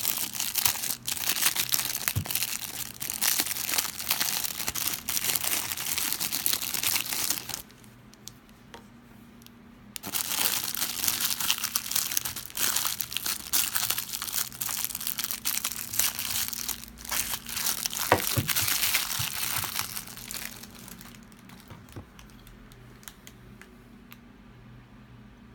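Clear plastic bag crinkling as a hand handles and unwraps a bottle, in two long spells with a quiet pause of about two seconds between them, then only light handling and a few faint clicks near the end.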